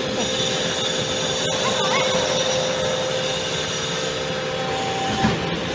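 A small scrap-metal baler's hydraulic power unit running steadily: a constant machine hum with a steady whine.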